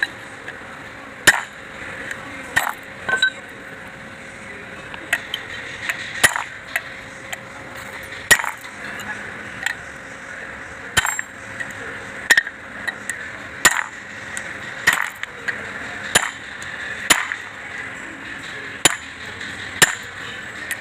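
Repeated sharp metal-on-metal knocks, roughly one a second, from a tool striking engine parts.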